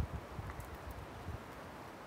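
Soft low thuds and rustling from a person moving about and stepping on rough ground, fading after about the first second, over a steady faint outdoor hiss.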